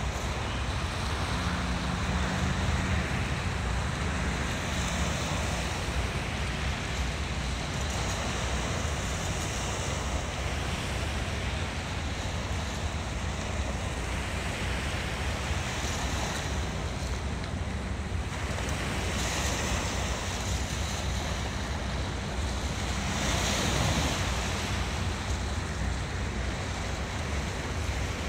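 Small waves washing and breaking against shoreline rocks, swelling every few seconds, with a steady rumble of wind on the microphone.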